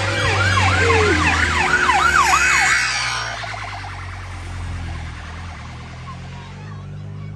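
Police car siren on a fast yelp, quick rising-and-falling sweeps, sounding for about three seconds and then cutting off, over the low drone of car engines.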